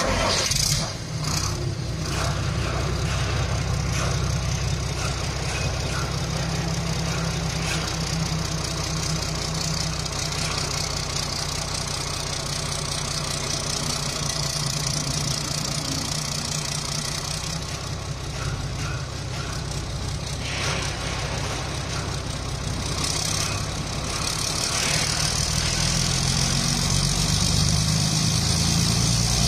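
Diesel engine starting up with a sudden catch, then running steadily with a low drone, getting somewhat louder over the last few seconds.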